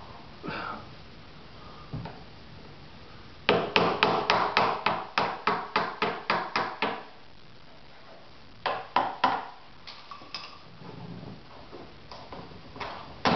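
Chisel being tapped in between a fiberglass nacelle part and its mold to pop the part free: a quick run of sharp knocks, about four a second for some three seconds, then a few scattered taps.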